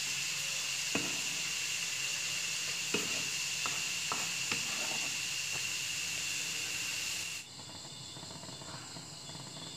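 Steady hiss with a thin high tone, with a few light taps and clicks of a knife and hands on a wooden cutting board. The hiss drops away suddenly about seven seconds in, leaving a quieter background.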